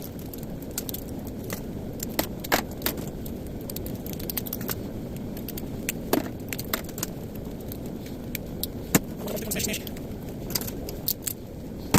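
Small brass and plastic pieces from smashed light switches clicking and clinking irregularly as they are picked apart and sorted by hand, over a low steady rumble.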